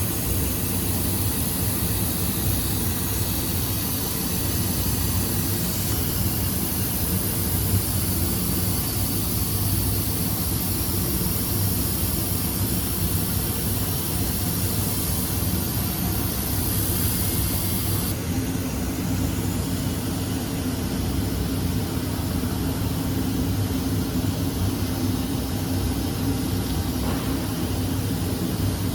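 Large-format mirror laser sand blasting machine running with a steady mechanical drone. A high hiss on top cuts off about 18 seconds in, leaving a low steady hum.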